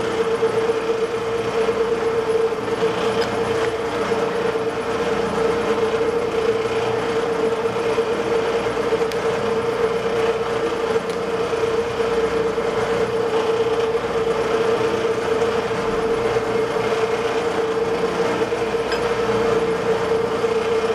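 Metal lathe running steadily, its drive giving a constant mid-pitched whine over a low mechanical hum, with the steel bar spinning in the chuck.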